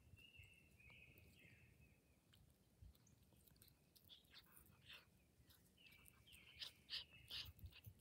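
Domestic cat sniffing and nosing right at the microphone: a run of soft, short sniffs that grows louder in the last couple of seconds. Faint birdsong in the background.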